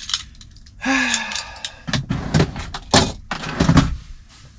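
Thunks, knocks and clicks of things being handled inside a truck cab. There is a short noisy burst about a second in, then a quick run of knocks.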